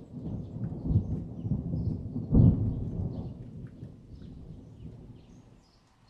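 Thunder rumbling, with a loud clap about two and a half seconds in that rolls away and fades out before the end. Faint bird chirps run above it.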